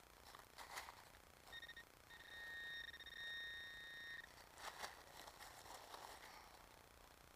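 Handheld metal-detecting pinpointer probe sounding a steady electronic tone for about three seconds, broken once briefly near its start, signalling metal close to its tip in the dig hole. Short scrapes of the probe and a gloved hand in soil and dry leaves come before and after the tone.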